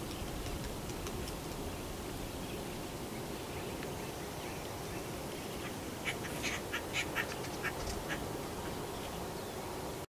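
Acorn woodpecker calling: a few faint short calls, then a quick series of about ten louder short calls between six and eight seconds in, over a steady low background rumble.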